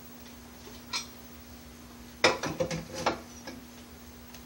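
Metal feed door and firebox of a rocket heater built from a steel well tank clinking and knocking as paper and wood are fed in: one light knock about a second in, then a quick run of sharper clanks about two to three seconds in.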